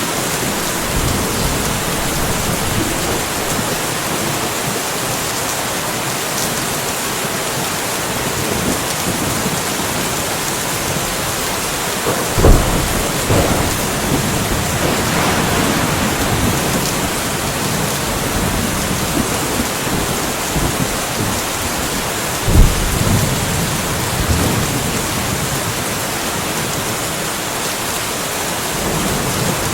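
Steady rainfall during a light thunderstorm, with two sudden loud thunder cracks, one about twelve seconds in and another about ten seconds later, each trailing off in a short low rumble.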